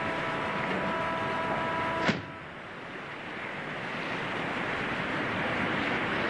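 Steady rushing noise of wind and lake water. For about the first two seconds a steady hum with several pitches runs over it, and it ends with one sharp click.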